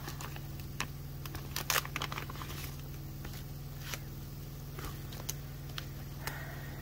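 Clear plastic binder pockets rustling and crinkling as they are flipped and handled, with scattered soft clicks, the busiest patch about one and a half seconds in. A steady low hum runs underneath.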